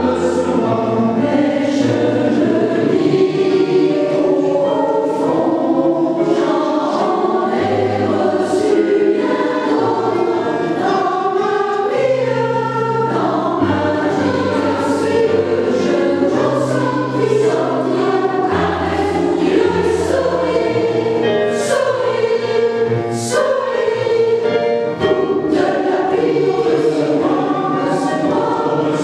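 Mixed choir of women's and men's voices singing a song in parts, continuously.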